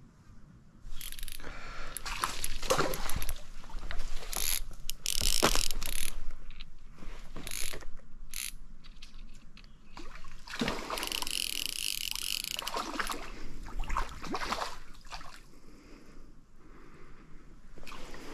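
Hanák Superlight fly reel's ratchet clicking in irregular spells, loudest about two to six seconds in and again around ten to fifteen seconds, as line runs off or is wound in.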